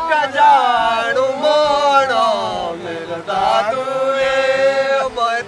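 Several men singing a traditional Maun fishing-festival folk song together in a chant-like style, with long drawn-out notes.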